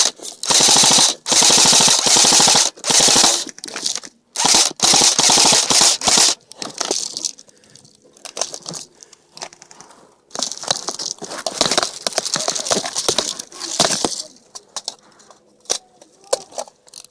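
Airsoft guns firing full-auto: several loud rapid bursts close by over the first six seconds, scattered fainter shots, then another long run of rapid fire from about ten to fourteen seconds, trailing off into single shots.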